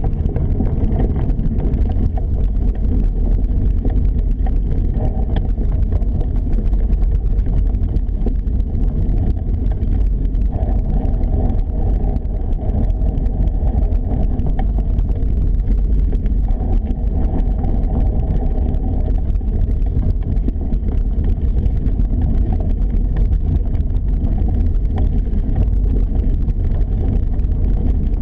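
Steady, loud low rumble of wind and movement buffeting an action camera's microphone, with no distinct separate event.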